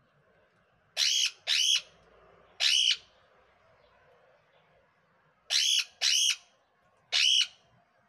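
Caged parakeets giving loud, harsh squawks: six short calls, each under half a second and arching up then down in pitch, in two groups of three about four seconds apart.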